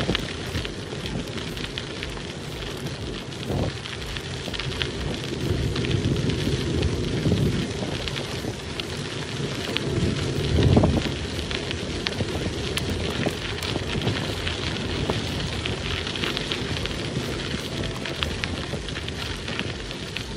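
Bicycle tyres rolling over a crushed-gravel trail: a steady crackling crunch with many small clicks. Wind rumbles on the microphone underneath, with a louder low surge about halfway through.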